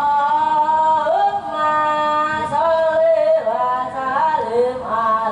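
A boy singing solo into a microphone, unaccompanied, in a high unbroken voice. He holds long notes and slides between pitches.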